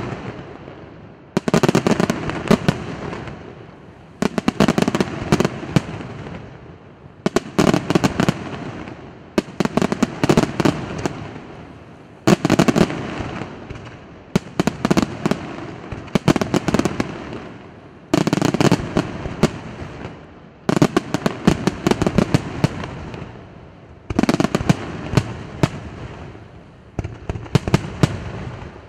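Aerial fireworks shells bursting one after another, a sharp bang every two to three seconds, each followed by crackling that fades out before the next.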